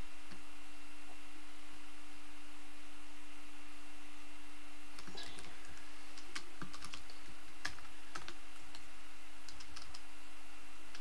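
Scattered keystrokes on a computer keyboard, a few irregular taps starting about halfway through, over a steady low hum.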